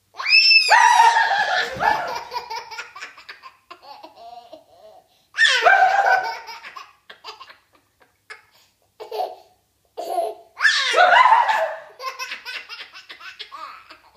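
A toddler's belly laughter in three bouts about five seconds apart, each loud at first and breaking into choppy giggles as it fades. The first bout opens with a short high-pitched scream.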